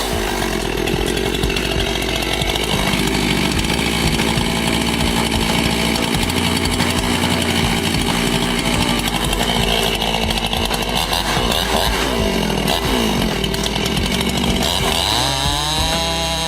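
Gasoline chainsaw running under load, cutting into a large tree trunk, its engine pitch rising and falling at times.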